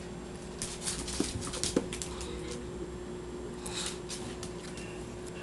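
English bulldog lunging and snapping at bubbles on a tile floor: a run of quick sharp clicks and snaps starting about half a second in, then another brief cluster near four seconds in.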